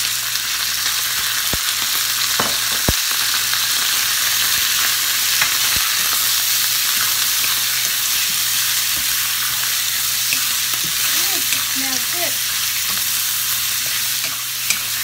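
Thinly sliced beef sizzling steadily in hot oil in a stainless steel skillet as it is stirred with a spatula, with a few light knocks of the spatula against the pan.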